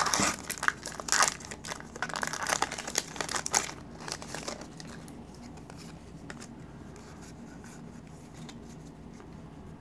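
Foil wrapper of a Pokémon trading card booster pack crinkling and tearing as it is ripped open. After about three and a half seconds it goes quiet apart from a faint low hum and a few soft ticks as the cards are handled.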